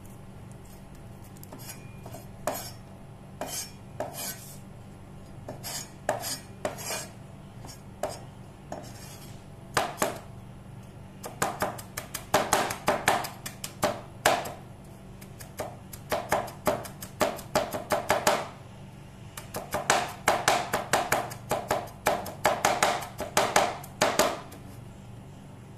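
Cleaver chopping garlic on a wooden cutting board. A few scattered knocks come first, then two long runs of rapid chopping strokes with a short pause between them.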